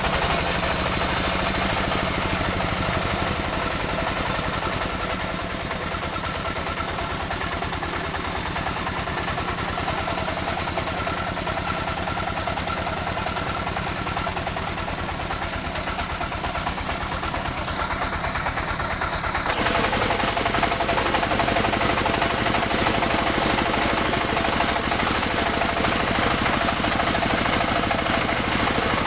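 Engine of a portable band sawmill running steadily under the saw's load, with a steady high hiss over it. About twenty seconds in it gets a little louder and changes tone.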